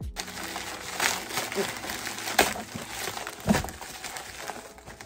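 Plastic poly mailer bag crinkling and rustling as it is torn open by hand, with a few sharper crackles.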